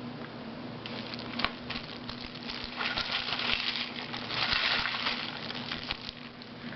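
Plastic wrapper of an instant-noodle pack crinkling and crackling as it is handled, with scattered clicks and louder rustles about three and about four and a half seconds in, over a steady low hum.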